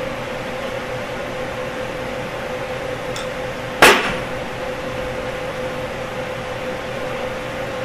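Steady shop background hum with one sharp knock of a hard object, with a short ring, about four seconds in.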